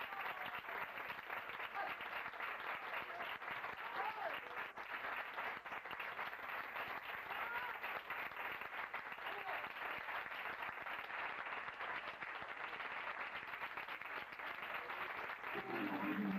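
Audience applauding steadily, with a few voices calling out from the crowd. A flamenco guitar starts plucking notes near the end.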